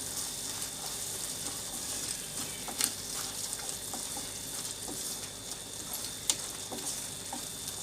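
Thick tomato and onion masala sizzling in a pan as it is stirred with a spoon, with a few light clicks of the spoon against the pan.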